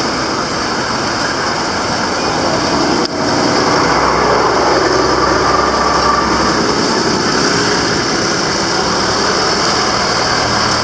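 Road traffic: several vehicle engines running and idling with a steady hiss. A deeper engine drone swells about four seconds in and eases off around seven seconds.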